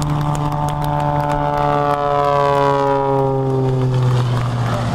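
Single-engine aerobatic propeller plane flying past low, its engine and propeller making a loud, steady drone whose pitch slides slowly down as it goes by.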